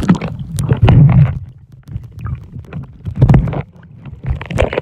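Muffled underwater noise from a phone microphone submerged in a swimming pool: low rumbling surges of moving water and bubbles, coming and going irregularly, with a few dull knocks.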